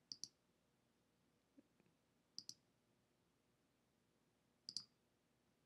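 Faint clicks of a computer mouse button, three times, each a quick double click of press and release, about two seconds apart; near silence between them.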